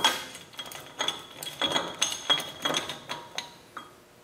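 Ratchet and steel spindle-nut socket tightening the outer lock nut on a front wheel hub: a run of sharp metallic clinks with a ringing note, about three a second, stopping shortly before the end.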